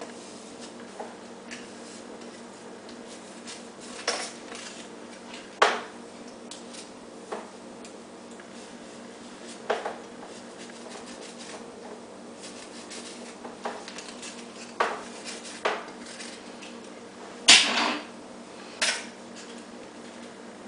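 Scattered clicks, taps and light knocks as foam model parts and small tools are handled on a tabletop, about ten in all, the loudest a short clatter about three-quarters of the way through, over a faint steady hum.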